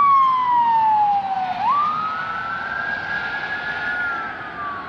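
Ambulance siren wailing: its pitch falls slowly, jumps back up about a second and a half in, holds high, then starts falling again near the end.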